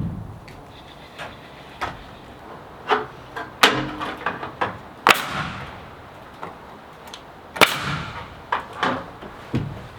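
Irregular knocks and bangs from building work, the loudest about three and a half, five and seven and a half seconds in, some ringing briefly.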